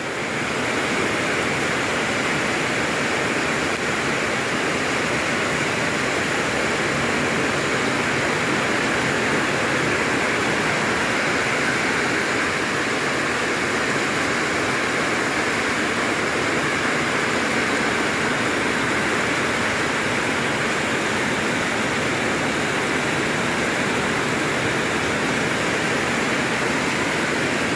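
Heavy rain pouring down steadily, a dense even hiss that holds without letup.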